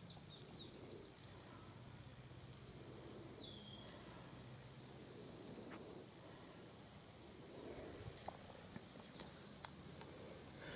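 Faint outdoor insect chorus: a steady high trill throughout, with a second high trill joining about halfway and breaking off briefly before resuming. A few short chirps sound near the start, and one short falling chirp comes a few seconds in.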